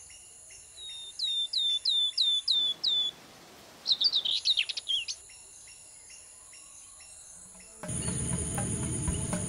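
Insects trilling steadily at a high pitch while a bird repeats a short hooked call about seven times in quick succession, followed by a brief burst of twittering. Near the end a louder, rougher background noise comes in.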